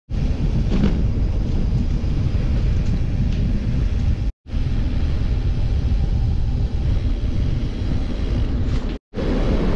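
Steady wind rumble on the microphone of a camera carried on a moving bicycle. The sound cuts out abruptly twice for a moment, a little under halfway and near the end.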